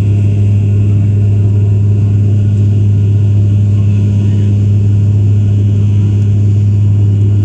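Cabin drone of a Bombardier Dash 8 Q400 turboprop climbing after takeoff: a loud, steady low propeller hum over engine and air noise, heard from a window seat under the wing.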